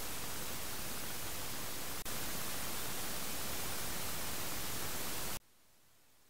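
Steady hiss of rain and runoff water, with a brief dip about two seconds in. It cuts off suddenly near the end, leaving near silence.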